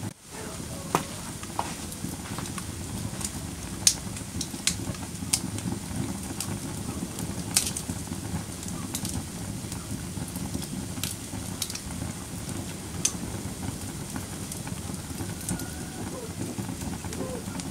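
Wood fire burning in a fireplace: a steady low rumble of flames with sharp, irregular crackles and pops every second or so.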